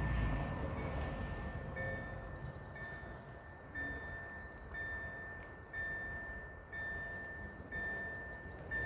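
Electronic railway level-crossing warning bell ringing, a single high tone struck about once a second. It signals that a train is approaching.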